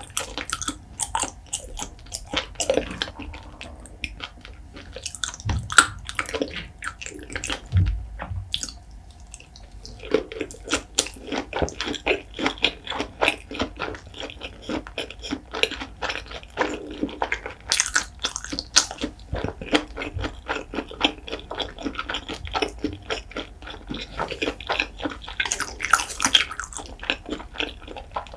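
Close-miked wet chewing and lip smacking of soy-marinated raw shrimp, with rapid irregular clicks and squelches, a little sparser about a third of the way in.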